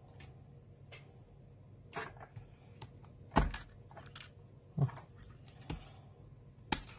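Scattered clicks and light knocks as metal tweezers work the battery loose from a Samsung Galaxy Tab 4's frame, the loudest about three and a half seconds in, over a low steady hum.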